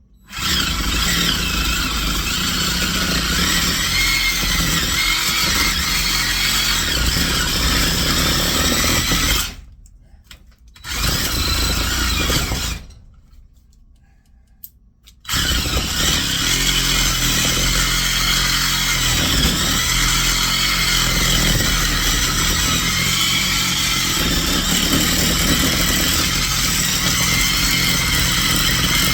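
Handheld electric power tool cutting at the metal of a scrapped electric motor, with a wavering whine. It runs in three goes: a long run, a short one after a brief stop, then steady again from about halfway through to the end.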